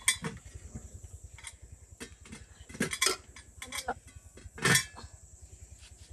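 Kitchen utensils and dishes being handled: a string of separate knocks and clinks, the loudest about three-quarters of the way through.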